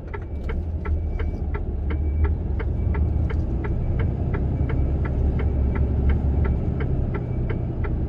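Truck diesel engine running, heard from inside the cab as a steady low rumble that gets a little louder about half a second in, with a steady rapid ticking at about three ticks a second.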